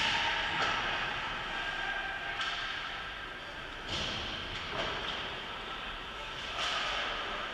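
Ice hockey play echoing around an arena: skate blades hissing and scraping on the ice, broken by several sharp knocks of sticks and puck.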